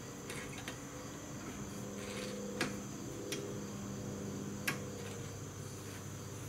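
Quiet workshop background with a steady low hum and a steady high-pitched whine. A few isolated sharp clicks of tools or parts being handled sound through it, the clearest two near the middle and about two-thirds of the way in.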